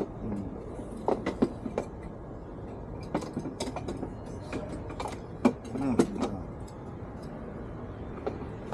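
Scattered clicks and knocks of parts being handled as an air-horn assembly is test-fitted into a space on a motorcycle, irregular and sharpest about five and a half and six seconds in.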